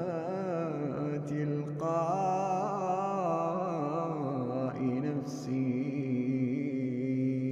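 A man's solo voice in melodic Quran recitation (tajweed), drawing out long ornamented notes. A wavering phrase gives way about two seconds in to a higher, more ornamented one. From about five seconds in it settles into a long, steady held note.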